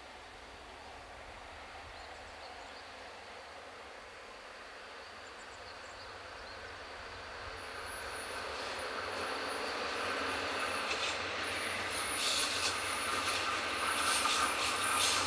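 DD51 twin-engine diesel-hydraulic locomotive hauling 12-series passenger coaches out of a tunnel and toward the listener: faint at first, then engine and wheel-on-rail noise growing steadily louder from about halfway. As the train comes round the curve a thin, high wheel squeal and quick clatter from the wheels come in over it.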